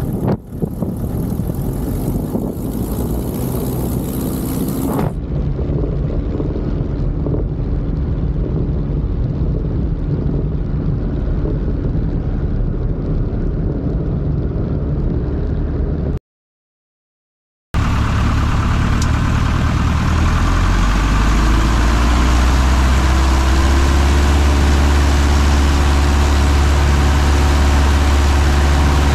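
Piper J3 Cub's 65-horsepower engine and propeller running, with heavy wind rushing on the microphone for the first five seconds. The sound drops out for about a second and a half midway, then the engine returns with a low drone that rises slightly and holds steady.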